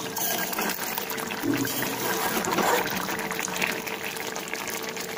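Chicken and potato curry simmering and sizzling in a kadai, a steady hiss, with a spatula stirring through the thick gravy.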